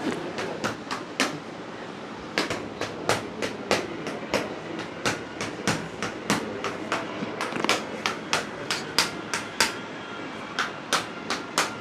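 Chiropractic back adjustment: a long series of sharp clicks and cracks, about two to three a second with two short pauses, as the spine is worked on.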